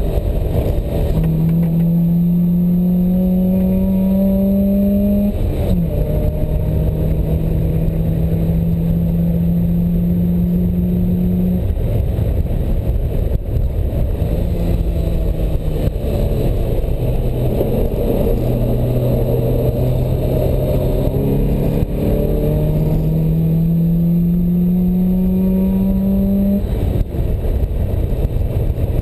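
Sports car engine heard from inside the open cockpit on a track lap, rising in pitch under hard acceleration, dropping sharply at an upshift about five seconds in, then climbing again. It eases off around twelve seconds in, pulls steadily, and climbs once more before dropping again near the end, over a constant rush of wind and road noise.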